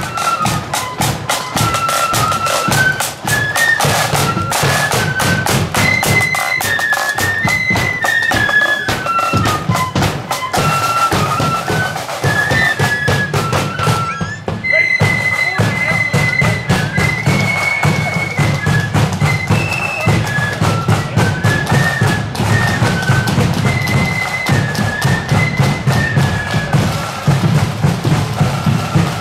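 Marching flute band playing a march tune: the flutes play the melody in unison over a bass drum and side drum beating steadily. The melody breaks off briefly about halfway through, then resumes.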